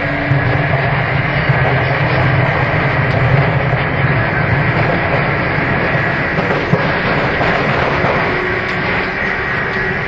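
Sotetsu 8000 series electric train heard from aboard motor car MoHa 8107 while running: a steady rumble of wheels and motors with a steady high whine over it, the jet-engine-like abnormal noise this car is known for.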